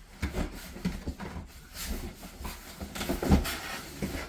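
Cardboard packaging being handled and opened: irregular scraping, rubbing and knocks, with the loudest knock a little past three seconds in.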